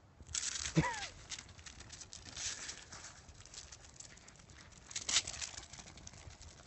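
Boxer dogs' paws scrabbling and pattering on a concrete driveway as they sprint off, with one short yelp about a second in and another burst of scuffing about five seconds in.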